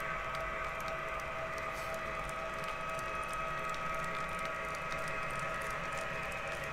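O scale model train cars rolling past on their track: a steady whining hum with light, irregular clicks from the wheels.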